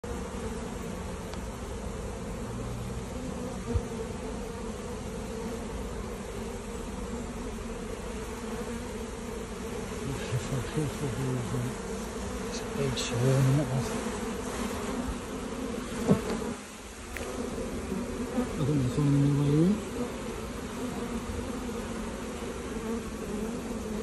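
A honey bee swarm buzzing close to the microphone: a dense, continuous hum. In the second half, louder individual buzzes waver up and down in pitch as bees pass near.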